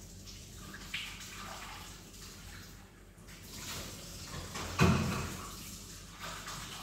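Dishwashing at a kitchen sink: water running and splashing, with small knocks of dishes and one loud clank of a dish or pot about five seconds in.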